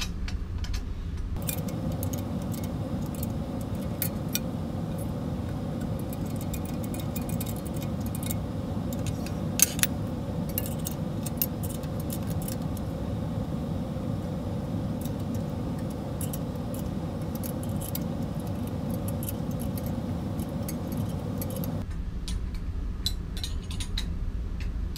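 Light metallic clinks and jangles of bolts and a small hand tool against the metal side plate and rail of a 3D-printer bed frame as its bolts are snugged up, with a couple of sharper clicks about ten seconds in. A steady hum runs underneath, starting about a second in and cutting off abruptly a few seconds before the end.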